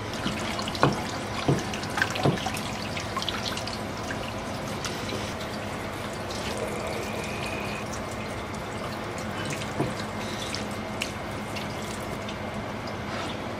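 Water running steadily from a tap into a sink, with a few short knocks and clicks in the first two or three seconds.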